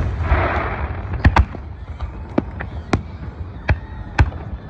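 Fireworks and firecrackers going off: a short crackling hiss near the start, then a string of sharp bangs at irregular intervals.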